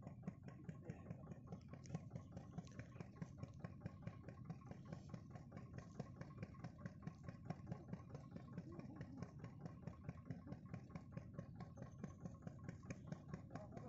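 An engine idling, a quick, even knocking beat of several pulses a second that holds steady throughout.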